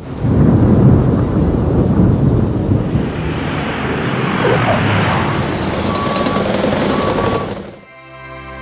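Logo-animation sound effect: a loud, noisy rumbling whoosh, like wind or a passing aircraft, that fades out near the end. A steady held synthesizer chord takes over just before the end.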